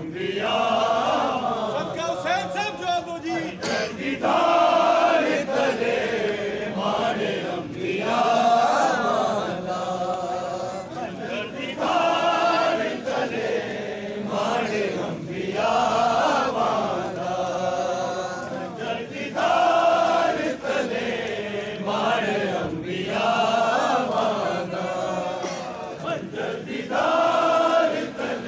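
Crowd of men chanting a noha, a Shia mourning lament sung for matam, with a loud chorus phrase coming back about every four seconds.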